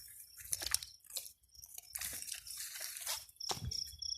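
Irregular crunching and rustling with dripping water, the sound of a wet frog trap being handled and opened.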